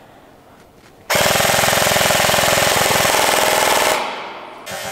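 Airsoft MP5 firing one long full-auto burst of about three seconds, starting about a second in: a loud, rapid, even rattle of shots.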